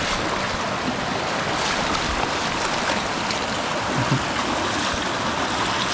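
Small mountain river rushing steadily over rocks.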